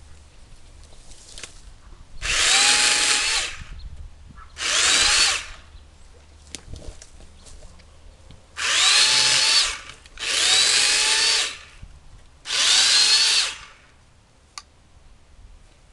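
Remington Ranger electric chainsaw cutting small fallen limbs in five short bursts. Its motor whine climbs quickly at the start of each burst and then holds steady.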